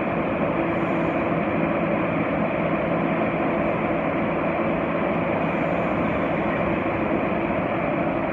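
New York City subway train running, a steady rumble and rushing noise with a constant low motor hum and no change in level.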